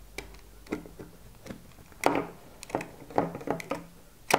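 Utility knife blade cutting through a ribbed plastic vacuum hose: a string of irregular clicks and crunches as the blade works through the hose's ribs, loudest about two seconds in and near the end.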